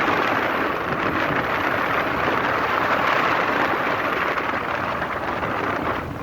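Strong wind buffeting the microphone at sea, a steady rushing noise that eases slightly near the end.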